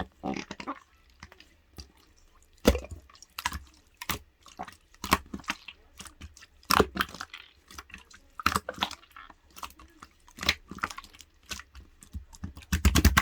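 Thick clear slime being squished and pressed by hand, giving irregular sharp clicks and crackles, with a quick run of them at the very end.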